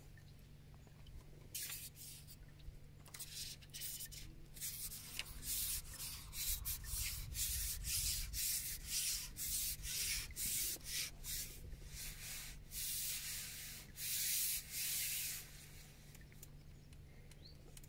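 A run of irregular rubbing and scraping strokes, starting about two seconds in and stopping about fifteen seconds in, over a steady low hum.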